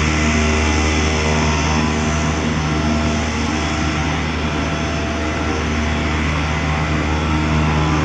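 Twin Commander turboprop's Garrett TPE331 engines running on the ground, a loud steady drone that holds one constant pitch.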